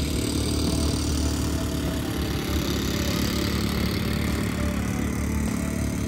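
Steady engine noise from small motor vehicles, a motorbike and a quad bike, running along the beach sand.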